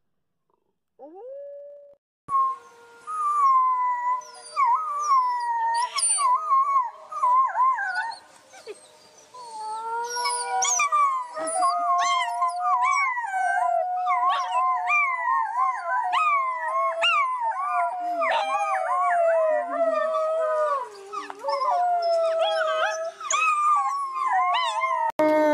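A group of wolf pups howling together: many overlapping, wavering howls, with short yips and yelps mixed through the chorus. It starts about two seconds in, after a near-silent gap broken by one short rising howl.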